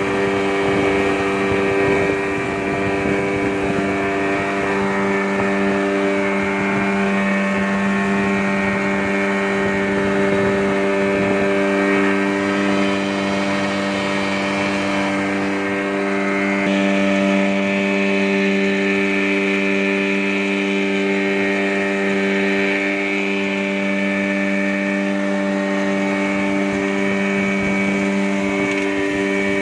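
Yamaha Enduro 15 hp two-stroke outboard motor running at a steady speed, pushing a wooden boat along, its pitch holding nearly constant.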